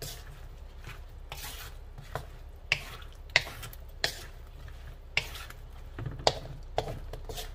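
A wooden spatula stirs and scrapes chunks of eggplant around a large metal wok, with repeated sharp knocks of the spatula against the pan.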